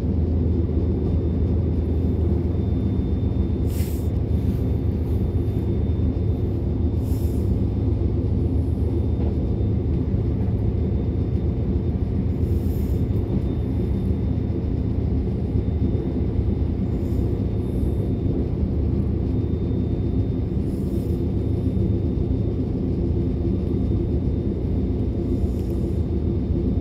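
DB class 425 electric multiple unit running at speed, heard from inside the passenger car: a steady low rumble of wheels on track with a faint constant high whine. A few brief high-pitched squeaks come every few seconds.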